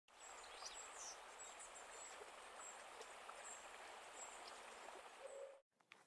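Faint outdoor ambience: a steady hiss with scattered short, high-pitched bird chirps. It cuts off suddenly near the end.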